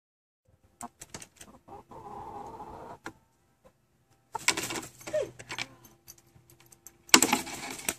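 Domestic hens clucking, with scattered sharp clicks and a steady pitched call in the first few seconds, then two louder rushes of noise, the loudest near the end.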